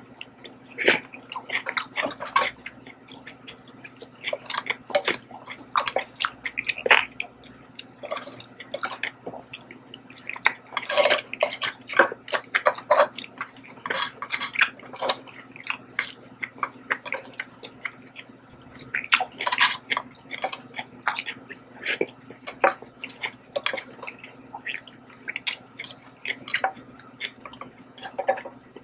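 Close-miked eating of abalone jajang noodles: wet chewing and mouth clicks, irregular and many, with light taps of chopsticks picking food from the grill pan.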